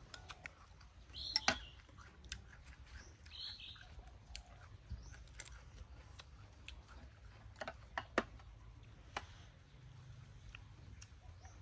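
Quiet chewing and mouth clicks of someone eating a raw hairtail fish salad roll, with a couple of short high chirps about one and three and a half seconds in, over a low steady hum.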